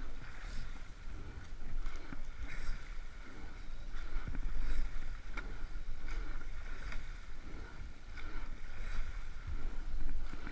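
Sweep-oared rowing boat under way at a steady stroke rate of about 28: short clunks of the oars in their gates and blades at the catch, swelling about every two seconds with each stroke, over water rushing along the hull and a low rumble.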